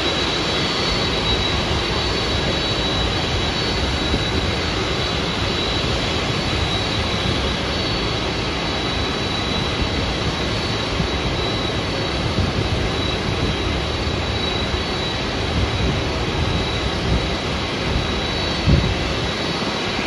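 Jet airliner engines running at idle, a steady rushing noise with a constant high whine on top. A brief low thump comes near the end.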